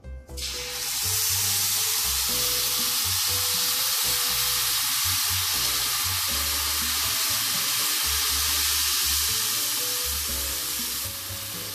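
Blended mango-habanero sauce poured into hot oil in a nonstick frying pan, sizzling loudly as soon as it hits, a steady hiss that eases a little near the end.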